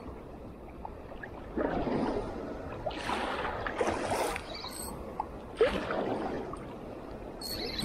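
Small waves washing against the groyne in three surges, one after another, with faint ticks and a brief high squeak near the end.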